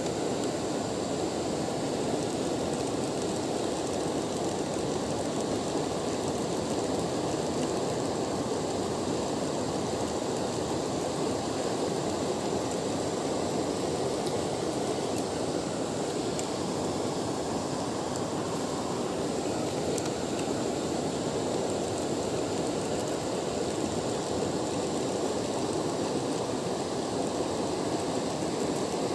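Steady rushing of flowing river water, an even noise with no breaks or separate sounds.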